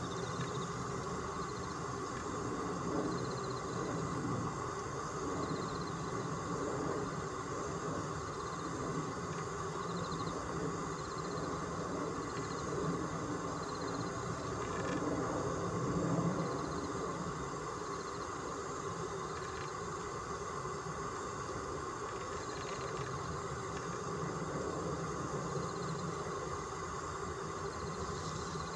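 Steady outdoor background noise: a low rumble with a faint steady hum, and faint high chirps that come and go every few seconds.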